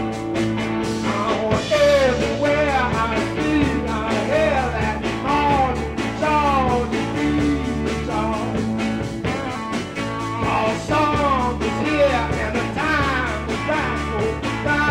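Live rock band playing: a male lead vocal over electric guitars, bass guitar and drums, with the singing coming in about a second and a half in over a steady driving beat.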